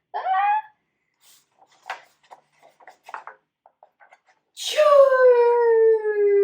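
A child's voice acting out a huge sneeze: a short 'ah' at the start, a few soft breaths and clicks, then about four and a half seconds in a sudden loud 'choo'. The 'choo' is drawn out for about three seconds and slides slowly down in pitch.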